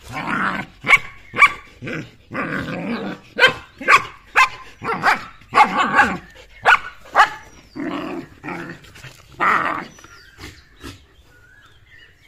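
Two German Shepherds, an adult and a puppy, play-fighting: a quick run of growls and sharp barks that dies down about ten seconds in.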